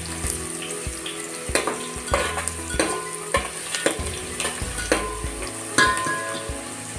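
Sliced onions frying and sizzling in hot oil in an aluminium pot, stirred with a steel spatula that scrapes and taps against the pot about once or twice a second. A short metallic ring sounds near the end.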